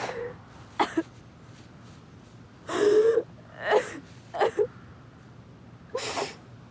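A young woman sobbing: several short, gasping cries and sharp breaths, with the longest and loudest sob about three seconds in.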